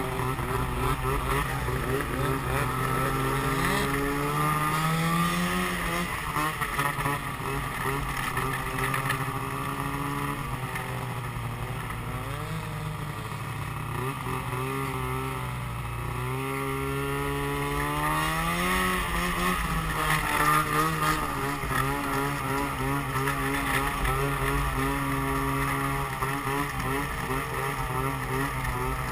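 Snowmobile engine running under way. Its pitch climbs as the throttle is opened about five seconds in and again around seventeen seconds, and holds fairly steady in between.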